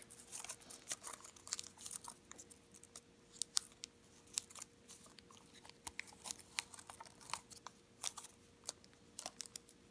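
Origami paper being folded and creased by hand: a string of short, irregular crinkles and small snaps as the folded strip is pinched.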